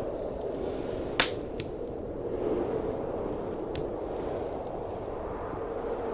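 Wood fire crackling in a fireplace: a loud sharp pop about a second in, a few smaller snaps after it, over a steady rush of blizzard wind.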